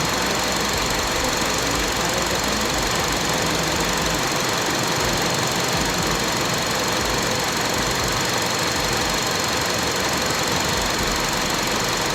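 2005 Honda CR-V 2.4's engine idling steadily, heard close up in the open engine bay, with a faint steady high whine.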